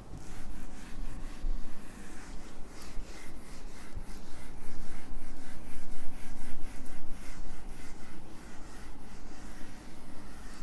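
A whiteboard eraser being rubbed hard across a whiteboard to wipe off marker writing, in quick repeated back-and-forth strokes.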